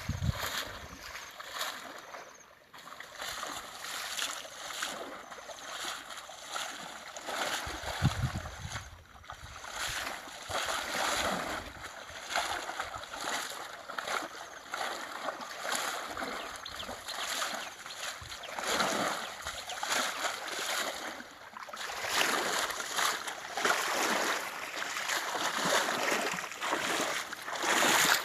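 Water splashing and sloshing in uneven, repeated surges, denser and louder near the end.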